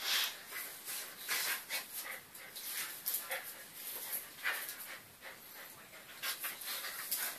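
Two Eurasier dogs, an adult and a puppy, play-fighting: irregular scuffling, claws scrabbling on a tiled floor, and panting breaths.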